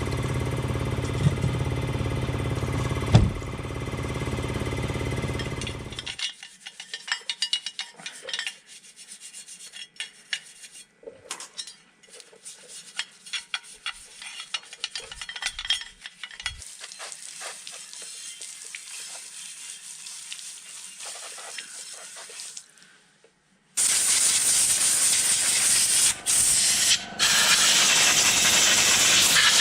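A steady hum that holds one pitch and cuts off suddenly about six seconds in, then light scattered scraping and clicking, then a loud, even hiss of spray painting that starts abruptly near the end.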